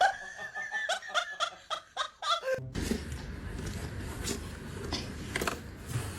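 A person laughing in short, rapid bursts. About two and a half seconds in it cuts off abruptly, giving way to steady background noise with a few soft clicks.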